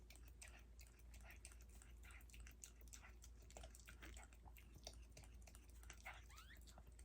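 Faint wet licking and smacking from a mother Yorkshire terrier cleaning her newborn puppy, in many small irregular clicks. About six seconds in comes a brief high gliding squeak from the newborn puppy.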